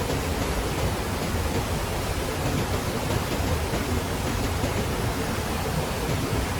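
Steady rush of running water, an even hiss and rumble with no breaks or separate events.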